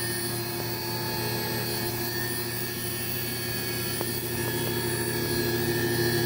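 Okuma ESV-3016 vertical machining center's spindle running steadily at about 7,000 RPM: a constant whine over a low hum, growing slightly louder near the end.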